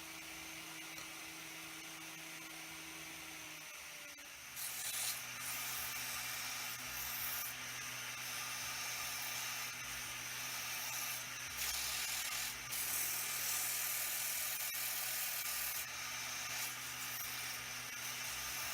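Wood lathe running steadily, turning a wooden wheel hub. About four seconds in, its hum drops to a lower pitch and a loud, uneven hiss of a tool cutting the spinning wood joins in.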